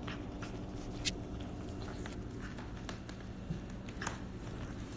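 A cat eating raw chicken from a stainless steel dish, chewing wetly, with a few sharp clicks. The loudest clicks come about a second in and about four seconds in, over a steady low hum.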